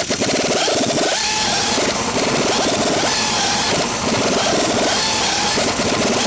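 A small engine-driven machine running steadily and loudly, with a rapid, even chugging pulse.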